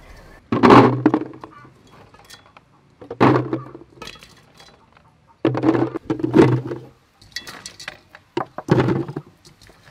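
Handfuls of small green jujube fruits tumbling and clattering into a plastic jar, in short thudding bursts every two to three seconds.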